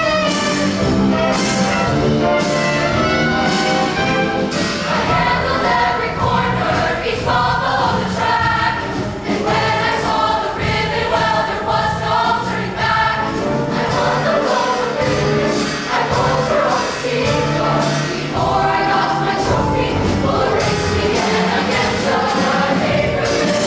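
High school show choir singing together in full voice over a loud instrumental accompaniment.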